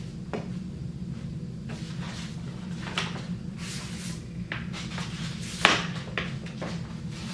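Hands packing a shell kit into a paper envelope: a series of short rustles and light knocks from opening the envelope, sliding the kit in, sealing the flap and pressing on a sticker. The loudest knock comes about three-quarters of the way through, over a steady low hum.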